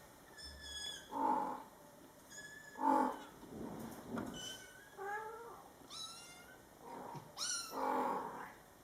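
Scottish Fold kittens meowing over and over in short, high-pitched calls, with the mother cat answering in louder, lower calls three times.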